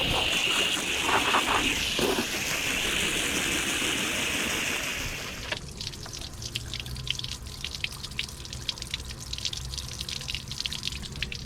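Water spraying steadily onto soaked boat carpet to rinse out road grime, cutting off suddenly about halfway through. Water then drips and trickles in many small irregular ticks off the wet carpet.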